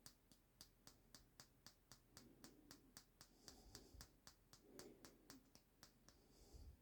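Faint, rapid, evenly spaced clicking, about five clicks a second, with soft handling rustles; it stops near the end.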